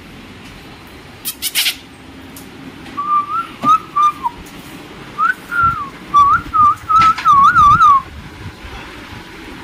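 A person whistling a short wavering tune, a string of notes starting about three seconds in and ending in a quick up-and-down warble near the end. A few sharp clicks come before it.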